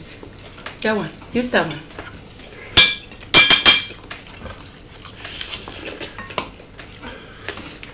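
Metal fork clinking and scraping on a ceramic plate: a sharp click about three seconds in, then a quick run of loud, ringing clinks, with softer eating sounds before and after.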